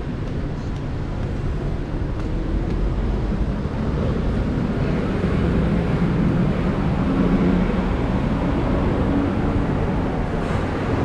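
Steady low rumble of street and station ambience, traffic and engines, with a low drone that grows stronger from about halfway through.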